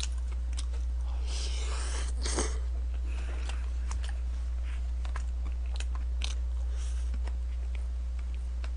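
Close-miked chewing of kimchi and rice, with wet mouth sounds and a few short clicks, strongest a second or two in. Under it runs a steady low hum.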